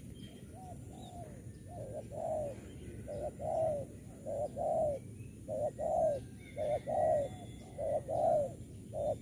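Spotted dove cooing in a steady series: each phrase is a short note followed by a longer arched coo, repeated about once a second from about two seconds in, over a low steady rumble.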